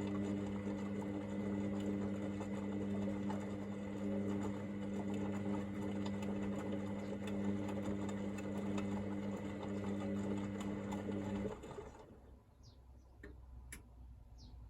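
Hoover VisionDynamic washing machine at the rinse stage, running with a steady electrical hum over rushing water. The hum cuts off suddenly about three seconds before the end, leaving a few faint short chirps.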